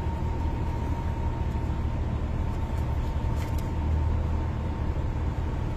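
A steady low mechanical rumble with a faint constant high whine.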